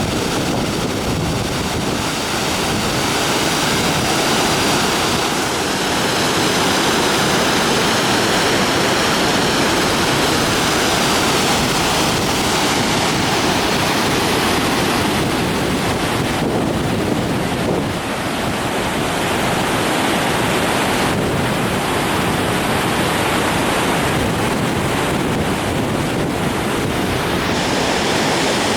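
Rushing water, a river or waterfall close by, making a loud, steady roar with no breaks.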